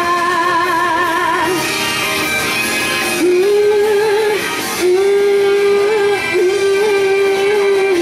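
Female vocalist singing long held notes with vibrato into a microphone over an instrumental backing, with a short break between phrases about four and a half seconds in.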